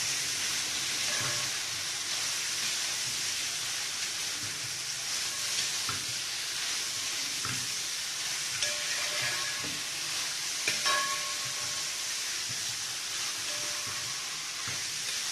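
Food sizzling as it fries in hot oil in a pan, a steady hiss with a few light clicks, the loudest about eleven seconds in.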